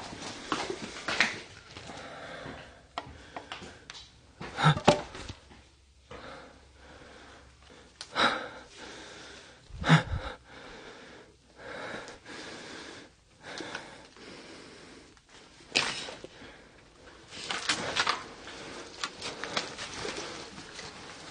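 Irregular rustling, scuffing and knocks close to the microphone as someone moves through debris and handles objects, with a few louder bangs spaced a few seconds apart.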